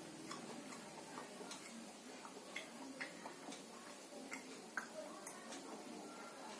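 Eating sounds at a Korean barbecue meal: irregular small clicks and smacks, a few a second and unevenly spaced, over a low steady hiss.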